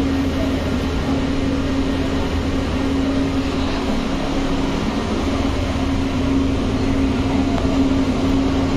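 Interior running noise of a Pune Metro train car as it pulls away from a station: a steady hum with one steady low tone.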